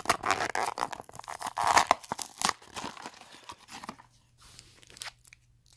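A packaging wrapper being torn open and crinkled by hand, in quick rough rips over the first two and a half seconds, then a few lighter rustles and clicks.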